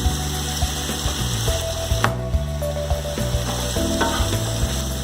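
Chicken pieces sizzling in hot oil in a pan while being sauteed, with a single sharp click about two seconds in.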